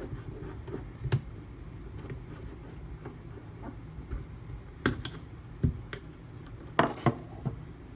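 A few light clicks and knocks from a sharpening stone and knife being handled and set down, spread out over several seconds, over a low steady room hum.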